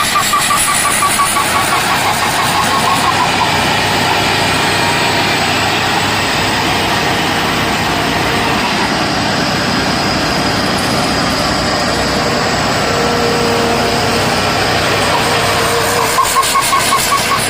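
Pan Charoen combine harvester running hard, a loud, steady engine and machinery noise, with a rapidly pulsing high whine over it near the start and again near the end.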